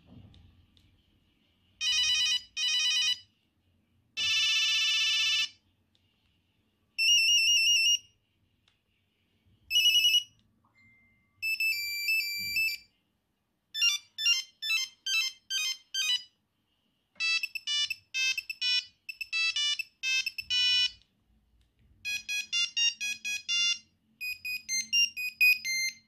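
Nokia 3310 monophonic ringtones previewing one after another as each is highlighted in the ringtone list. About eight short beeping melody snippets, each cut off after one to two seconds, with short pauses between them.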